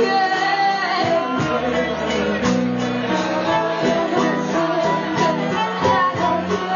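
Live band playing rock music, with electric guitars, drums and a woman singing.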